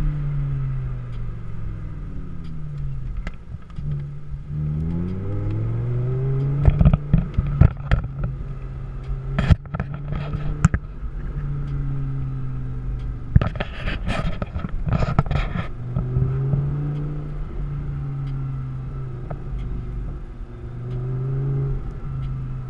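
Audi R8 engine heard from inside the cabin while driving, its pitch falling and rising as the car slows and speeds up. Two bursts of sharp knocks and rattles come in the middle.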